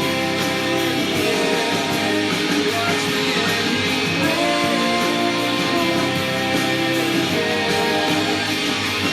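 Alternative rock song playing, with guitars to the fore.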